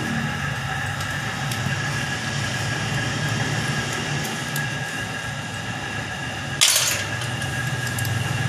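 Steady low mechanical hum with a few constant higher tones, a few faint ticks, and one short, sharp hissing burst about two-thirds of the way through.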